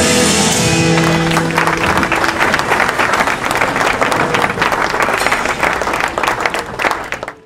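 The last held notes of a song fade about a second in, then an audience applauds, and the clapping cuts off suddenly near the end.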